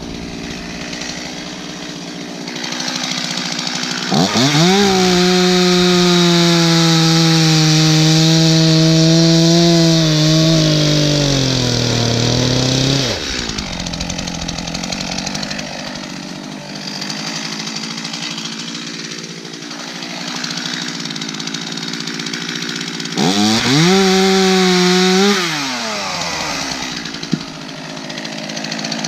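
Two-stroke chainsaw idling, then opened to full throttle about four seconds in and held for about eight seconds, its pitch sagging as it bogs under load in the cut before dropping back to idle. A second short burst of throttle comes near the end.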